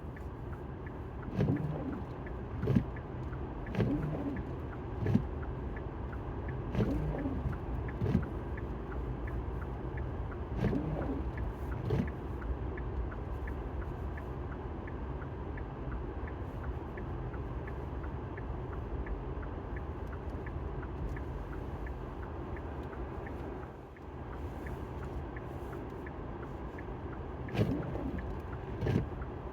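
Steady low rumble of road noise inside a moving car, with a faint regular ticking and a dozen short thumps, most of them in the first twelve seconds and two more near the end.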